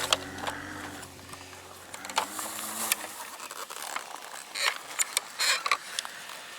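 Plastic toy backhoe loader digging in loose dirt: scattered clicks, scrapes and gritty rustles, coming in clusters.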